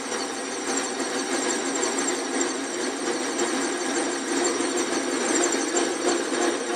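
Montgomery Ward Logan metal lathe running at reduced speed while a cutoff tool cuts into an old steel gear, a steady mechanical running noise with a thin high-pitched ringing on top.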